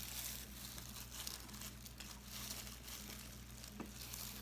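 Faint eating sounds: irregular crackly chewing and mouth noises with a few small clicks, over a steady low hum.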